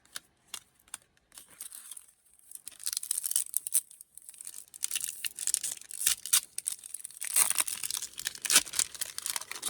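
Pokémon card booster pack wrapper crinkling and tearing as it is picked at and pulled open with fingernails; the pack is hard to open. A few light clicks at first, then dense crackling from about a second in onward.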